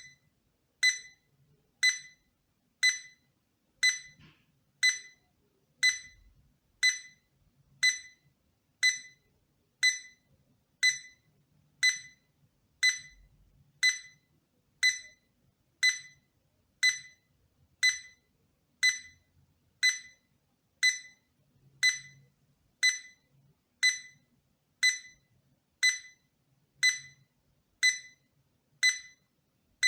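Projection alarm clock's electronic alarm beeping: one short, high beep about once a second, evenly spaced and at a steady level.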